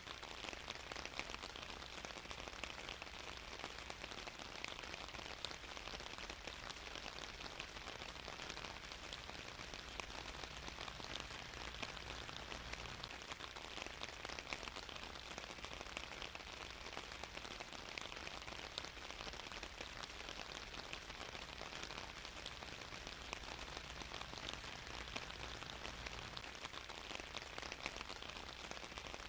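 Steady rain falling on a surface, an even patter of many fine drops.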